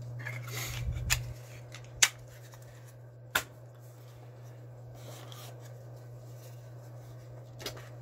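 Hands handling lighter cases: a short rustle, then three sharp clicks of plastic and metal cases about a second apart, over a steady low hum.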